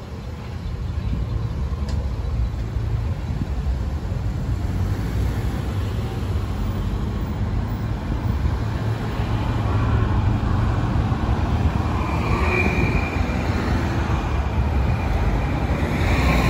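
Road traffic passing on a multi-lane boulevard: car engines and tyre noise over a steady low rumble that grows gradually louder, with a short high squeal about twelve seconds in.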